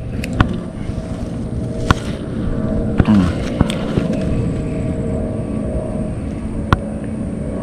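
A steady motor drone holding an even pitch, with a few sharp clicks, one near the start, two more in the first half and one near the end.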